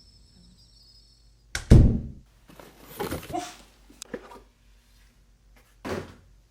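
A loud, deep thump about a second and a half in, followed by a stretch of scuffling knocks, a sharp click, and another thud near the end.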